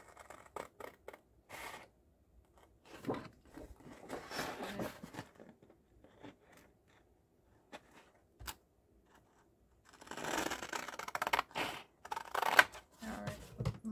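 Scissors cutting through a brown kraft file folder in a series of short snips. About ten seconds in, the cutting turns into a denser, crackling stretch that lasts about three seconds.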